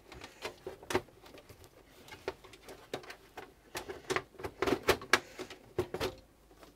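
Plastic top cover of a Macintosh LC 630 case clicking and knocking as it is worked loose and slid off the metal chassis: a string of irregular sharp clicks, thickest about four to five seconds in.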